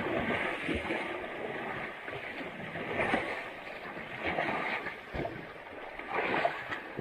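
Muddy river water sloshing and splashing unevenly, as elephants wallow in a mud bath.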